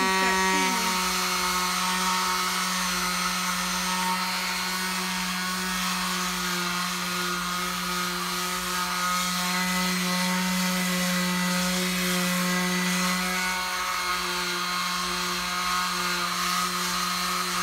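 Genesis corner palm sander's electric motor running at speed with a steady hum, its pad sanding the wooden rail of a bench.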